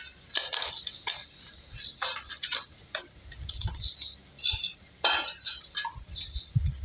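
Hands kneading and pressing soft dough in a stainless steel bowl, making irregular light clicks and taps, with small clinks against the metal bowl.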